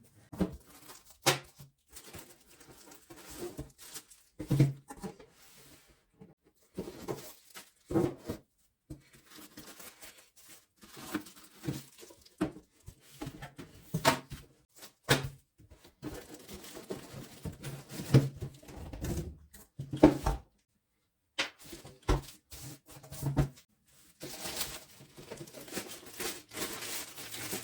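Cardboard box being opened and its packing handled: irregular rustling, scraping and knocking of cardboard and packing material, with a few brief pauses.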